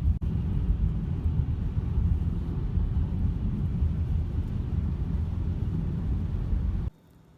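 Wind buffeting the microphone during a snowstorm, a heavy irregular low rumble that cuts off abruptly near the end.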